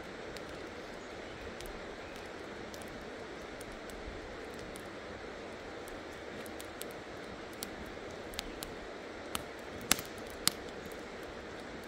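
Steady rushing of a mountain river, with scattered sharp crackles and pops from a wood fire; two louder pops come near the end.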